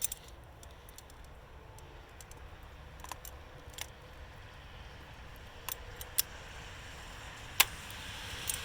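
A hand tool working at a spring hose clamp on a PCV valve hose: a handful of sharp, isolated metallic clicks a second or so apart, over a faint steady background.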